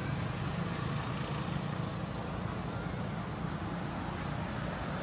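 Steady low rumble under an even hiss, with no clear animal calls or sudden knocks.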